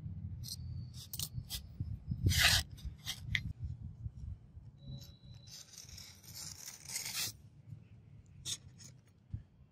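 Steel knife blade, ground from an old file, and a digital caliper scraping and rubbing on a wooden board. A string of short scrapes comes first, the loudest about two seconds in, then a longer rub about six to seven seconds in and one last short scrape.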